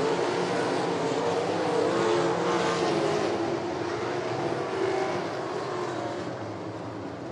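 Race car engines running at speed on a dirt oval, several wavering engine notes at once, fading over the last two seconds.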